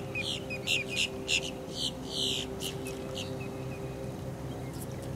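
Birds chirping: a quick run of short, high chirps and brief calls through the first three seconds, then trailing off. A steady low hum runs underneath.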